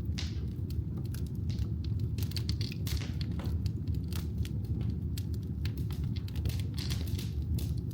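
Firewood burning in a fireplace: irregular crackles and sharp pops over a steady low rumble of the flames.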